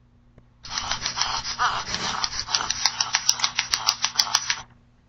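A sound-effect clip from an online soundboard played through laptop speakers: about four seconds of noisy, scratchy sound with a run of sharp clicks, about four a second, in its second half, starting and stopping abruptly. Its exact content can't be made out; it is taken for a weird sound.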